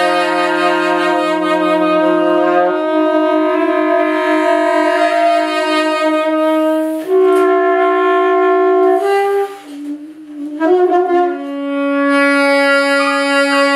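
Alto and tenor saxophones playing long held notes together, the two tones sustained and overlapping and changing pitch only now and then. About ten seconds in the sound briefly thins and a note slides down, then the long tones resume.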